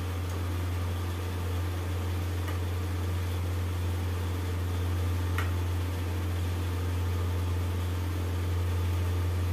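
Steady low hum under an even hiss as khaja fry gently in ghee in a steel kadhai on a low gas flame, with two faint taps of a steel slotted spoon, one about halfway through.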